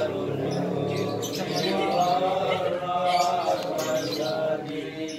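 A group of men chanting Islamic devotional verses (sholawat) together, long held notes gliding from pitch to pitch.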